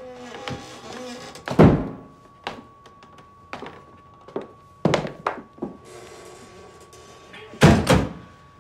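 Heavy wooden thunks and footfalls as a trapdoor is climbed out of and a hinged wooden counter section is swung up. The loudest knock comes about a second and a half in and a heavier cluster near the end. Under them a hotel desk bell keeps up a faint, steady, high ring.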